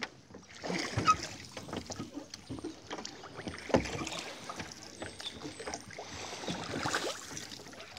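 Oars of a rowboat pulling through water: splashing and swishing of the blades, with a few knocks from the oars and oarlocks, the strokes coming about every three seconds.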